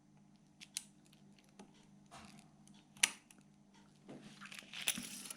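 Small clicks and scrapes of a tool prying the white plastic movement spacer out of an opened quartz watch case, with the sharpest click about three seconds in and a run of scratchy scraping near the end.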